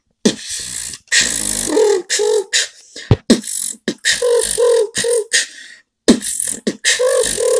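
Vocal beatboxing by one man: mouth percussion of sharp clicks and kick-like pops, hissing snare and hi-hat sounds, and short hummed tones woven between them, with brief pauses about a second in and near the six-second mark.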